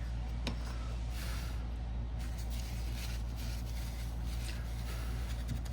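Steady low background hum, with faint scratchy rustling and a few light clicks from hands handling the opened phone and its parts.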